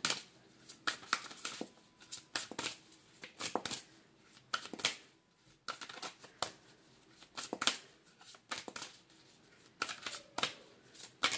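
A deck of tarot cards being shuffled by hand: uneven bursts of sharp card clicks about once a second, with short quiet gaps between.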